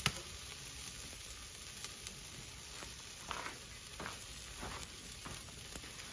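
Chicken drumsticks sizzling on a charcoal grill over glowing coals: a steady hiss with scattered sharp pops and crackles.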